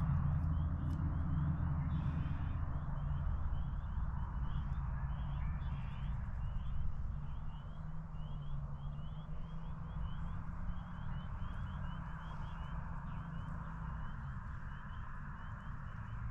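A chorus of spring peepers calling: many short rising peeps, several a second, overlapping throughout. A louder low rumble runs underneath.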